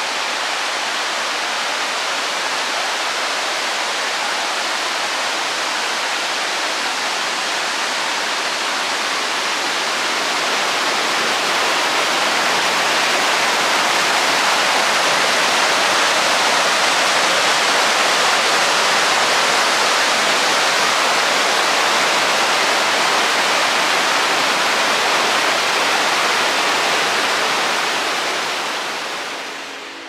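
Waterfall's steady rush of falling water, a dense even hiss that grows a little louder about a third of the way in and fades away near the end.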